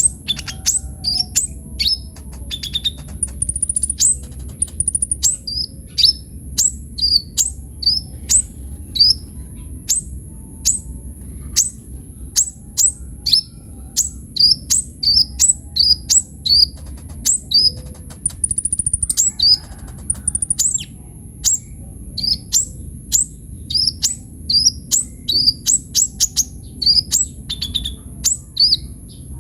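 Sunbird singing continuously in a rapid run of sharp, high, downward-slurred chirps, two or three a second, varying in pitch. A faint steady high whine and a low hum run underneath.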